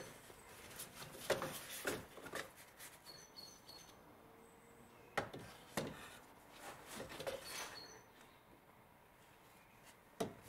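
Scattered clicks and knocks of a ratchet wrench and metal parts as the wrench is worked on the serpentine belt tensioner, with a few short, high chirps between them.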